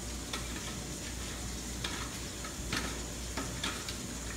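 Steel tongs stirring and sloshing in a steel basin of salt quench water while fishing out freshly hardened steel hammer heads, with a few light metal clicks as the tongs touch the heads and basin, over a steady background hiss.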